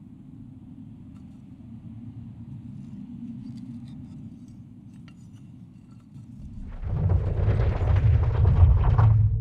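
Low, steady drone with faint scattered ticks. About seven seconds in it swells into a loud rushing noise over a deep rumble.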